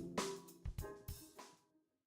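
Music with drums and cymbals, a few last hits fading out and stopping about one and a half seconds in.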